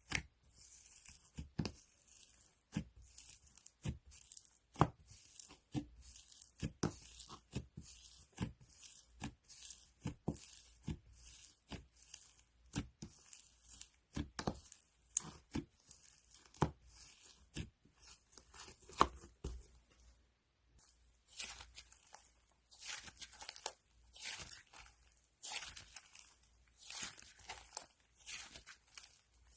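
Crunchy slime being squished and pressed by hand, giving a steady run of sharp pops and crackles. About two-thirds through it turns into longer, denser crackling stretches, like tearing.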